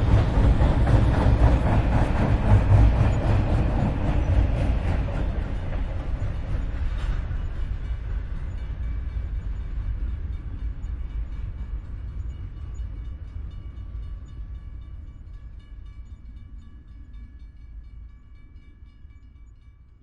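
Train running with a heavy low rumble that fades away steadily. Faint steady high-pitched tones come through in the second half as the rumble dies down.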